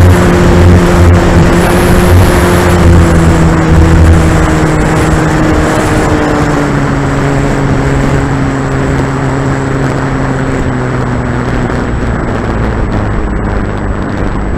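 Electric motor and propeller of an E-flite Corsair RC plane, heard from a camera on the airframe under heavy wind rush on the microphone. The motor's whine slowly falls in pitch and the sound gradually fades as the plane throttles back and descends low over the grass to land.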